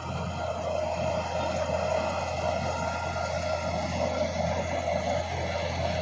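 Komatsu crawler bulldozer's diesel engine running steadily under load as its blade pushes a heap of loose dirt.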